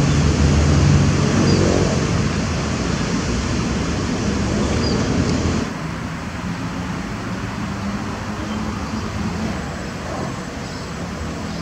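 Heavy diesel engine running steadily with a low hum. About six seconds in the sound cuts to a quieter, duller take.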